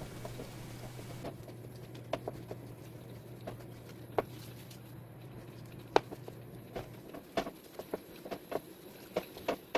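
Gloved hand pressing and squeezing damp pollock skins wrapped in kitchen paper to blot the water out: soft irregular crinkles and small clicks, coming more often near the end.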